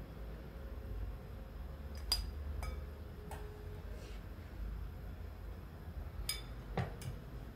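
A wire spider skimmer clinks against a stainless steel pot and a glass bowl while blanched chicken bones are lifted out of the water and dropped into the bowl. There are several short, sharp clinks, the loudest about two seconds in and a cluster near the end, over a low steady rumble.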